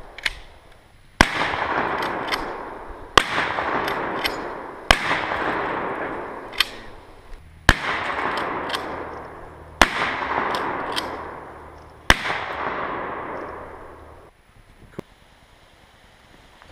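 Gunshots in an open field: six loud cracks about two seconds apart, each followed by a long echoing tail, with fainter sharp ticks in between.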